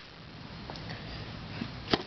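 Quiet handling noise of plastic twisty puzzles, with a few faint clicks and one sharper click near the end as a puzzle is picked up or put down.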